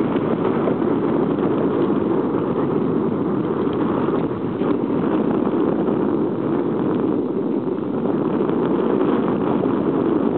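Wind blowing across the microphone: a loud, steady rushing noise that dips briefly about four seconds in.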